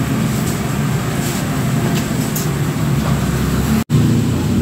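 Steady, loud mechanical hum with a hiss over it, like a machine running constantly. It cuts out for an instant near the end, then carries on.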